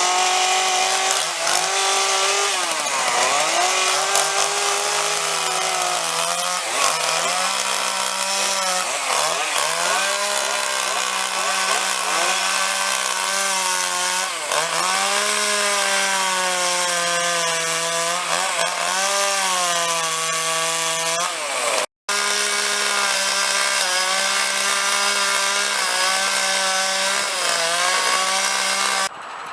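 Chainsaw running at high revs while cutting into wood, its engine pitch repeatedly dipping and recovering as the chain bites and is eased off. There is a brief break about two-thirds of the way through.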